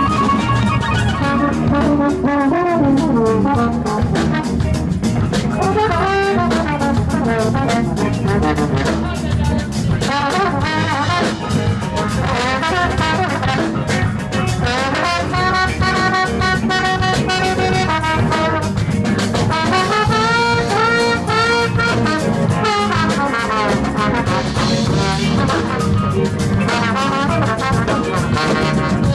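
Live horn band playing an instrumental passage, with the trombone out front over saxophones, electric guitar, bass and drums.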